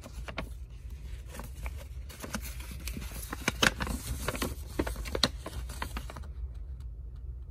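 Folded paper pamphlet rustling and crackling as it is handled, turned over and refolded, with a run of sharp paper crackles that stops about six seconds in.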